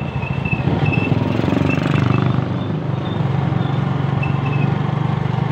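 Engine of a slow-moving small vehicle, heard from inside its cabin, running steadily with an even low pulsing hum. A few faint short high chirps sound over it near the start and again about four seconds in.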